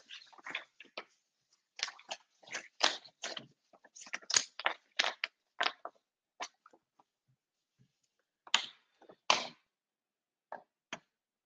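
Sheets of paper being handled and shuffled: a run of short, crisp rustles, dense for the first six seconds and only a few after that, with silent gaps between.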